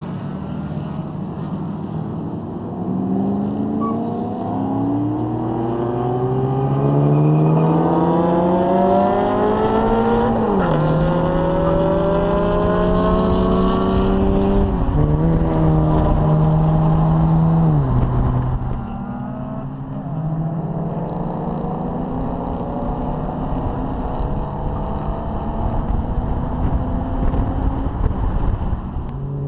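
Holden VF Commodore SV6 ute's 3.6-litre V6 under hard acceleration, its pitch climbing through the revs. Sharp drops in pitch about ten and fifteen seconds in are upshifts. About eighteen seconds in it eases off and runs at a lower, steadier pitch, with road and wind noise underneath.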